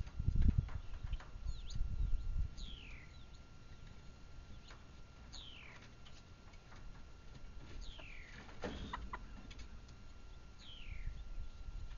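Young Red Sex Link hens calling: four high peeping calls, each falling in pitch, about one every three seconds, with a short harsher sound about nine seconds in. A low rumble on the microphone during the first two seconds.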